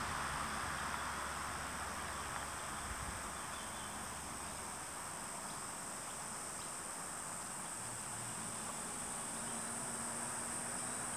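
Steady, high-pitched drone of insects calling, unbroken throughout. A broad hiss under it fades away over the first few seconds.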